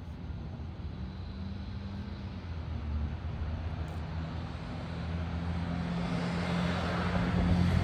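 Low, steady engine hum that grows louder throughout, with a rushing noise building near the end.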